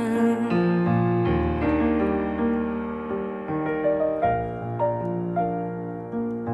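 Background music: a piano instrumental passage between sung lines, notes and chords struck and held.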